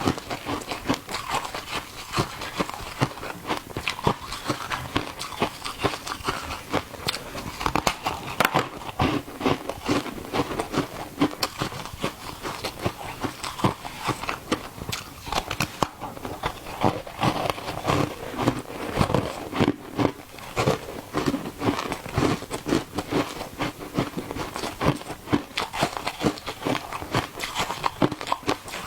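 Close-miked crunching of ice being bitten and chewed: a dense, continuous run of sharp crackly crunches.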